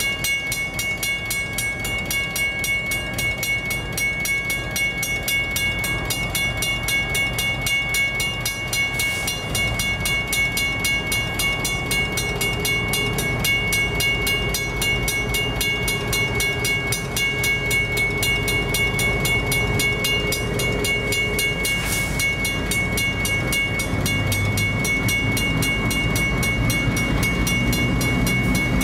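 Level crossing's electric bell ringing rapidly and without a break while the crossing is activated. The diesel locomotives of an approaching coal train grow louder near the end.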